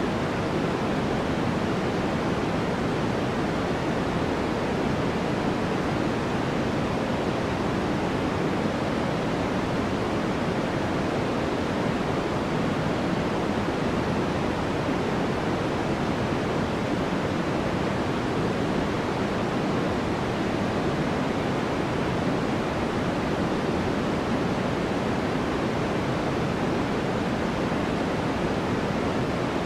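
Steady white-noise background track: an even, deep hiss that holds without change.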